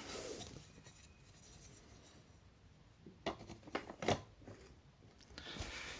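A few light clicks and knocks of plastic toy train track pieces being handled and fitted together, three of them close together a little past the middle, with soft rubbing near the end.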